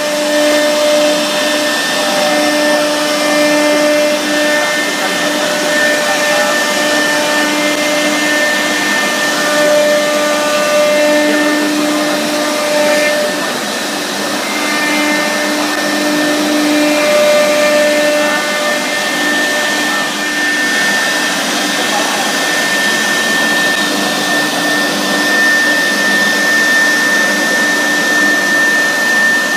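HSD 6 kW air-cooled spindle of a CNC router running at speed and cutting a wave pattern into a board. A steady high whine sits over a rushing cutting noise, with a lower hum that drops in and out as the cutter moves.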